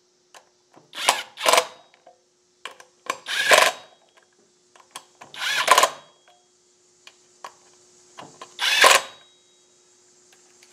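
Cordless impact wrench run in five short bursts of about half a second each, spinning the brake disc's mounting bolts down snug but not tight, with faint clicks of the socket between bursts.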